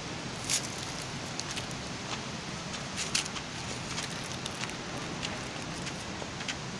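Dry fallen leaves rustling, with a few sharp crackles now and then over a steady low background noise.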